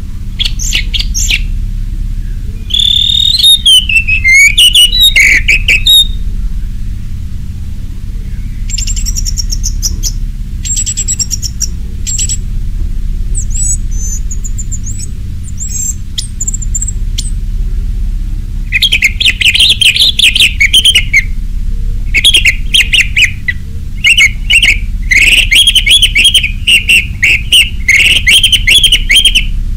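Orange-headed thrush singing at full voice, a varied run of rapid whistled and chattering phrases. The phrases are spaced out at first and come thick and fast over the second half. A steady low hum sits underneath.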